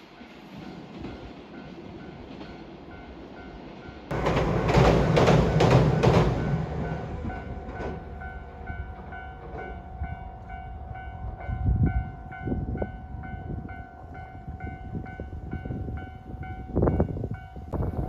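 Train passing close by a level crossing, running loudly for a couple of seconds about four seconds in, while the crossing warning bell rings in evenly repeating strokes.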